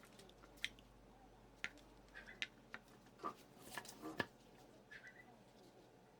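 Light, scattered clicks and taps, about a dozen at uneven intervals, from hand work on a small wooden piece and tools.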